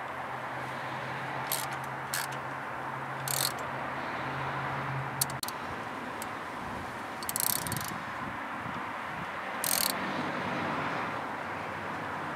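Hand ratchet clicking in short runs as a socket on an extension turns a spark plug thread-repair insert into the cylinder head. Between the runs there are brief tool rattles, over a steady low hum that stops about five seconds in.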